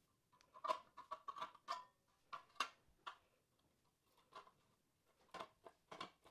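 Tin snips cutting a sheet-metal hydronic baseboard heater cover: a run of short, crisp metallic snips, about a dozen in all, with a pause of about two seconds in the middle.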